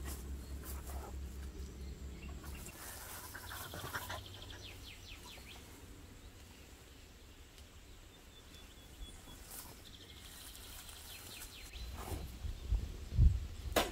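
Songbirds trilling in the background, a quick run of repeated high notes about four seconds in and again about ten seconds in, over a low hum that fades after the first few seconds. Near the end come a few low thumps, the loudest sounds of all.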